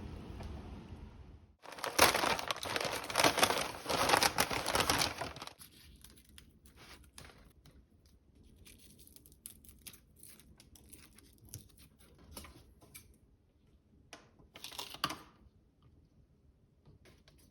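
Crinkling and tearing, as of something being crumpled or torn open by hand, loudest for about three and a half seconds starting about two seconds in. Scattered small clicks and rustles follow, with a second short crinkle near the end. A steady hiss before it cuts off about a second and a half in.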